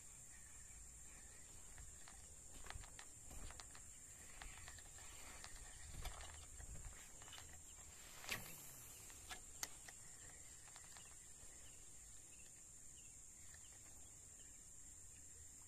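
Faint outdoor ambience: a steady high-pitched insect drone, with scattered faint clicks through the middle and a sharper knock about eight seconds in.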